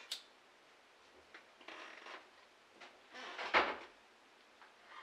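A handheld lighter struck to relight a sage bundle: a soft rustle around two seconds in, then a louder short scrape about three and a half seconds in, after a small click at the start.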